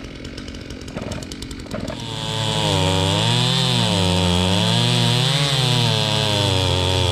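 Two-stroke chainsaw cutting through a downed tree: quieter at first, then about two seconds in it opens up to full throttle, its pitch wavering up and down as the chain loads and frees in the cut.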